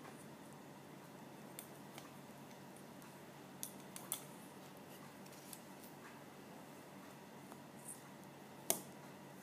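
Faint, scattered sharp clicks and taps of a plastic marker pen being knocked about as a cat bites and bats at it, the loudest near the end.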